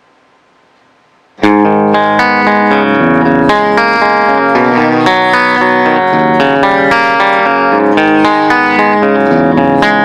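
Ibanez RGIT20FE Iron Label electric guitar played through its EMG 81 bridge pickup and amplified, tuned to Drop C#. After a second and a half of faint hiss the playing starts suddenly, a continuous run of picked notes and chords ringing into one another.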